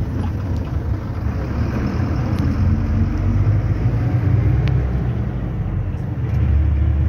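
Engine and road noise of a moving bus heard from inside the passenger cabin: a steady low rumble and hum, growing stronger about six seconds in.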